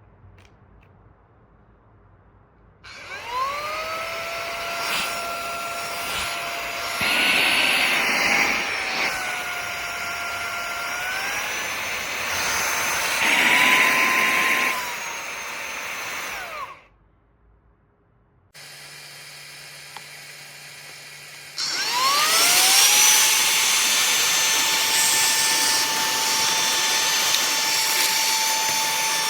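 Cordless handheld vacuum motor spinning up with a rising whine, running with a couple of steps in pitch and two louder surges, then winding down. After a brief pause and a low hum, it spins up again and runs steadily.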